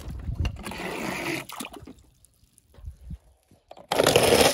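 Water sloshing and dripping in a plastic tub. Near the end comes a sudden loud clatter as die-cast toy cars are let go down a wooden ramp.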